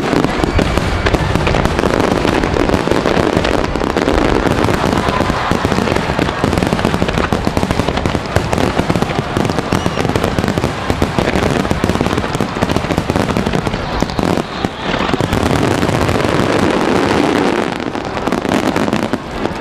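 Continuous starmine fireworks barrage: many shells launching and bursting in rapid succession, a dense unbroken run of bangs and crackle, loud throughout.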